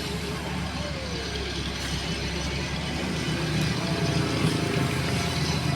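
Engines of heavy road-paving machinery and trucks running steadily, a low drone over a haze of road-works noise.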